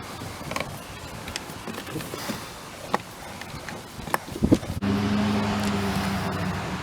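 A few light clicks and knocks, then about five seconds in the 2003 BMW 530i's straight-six engine starts and settles into a steady idle.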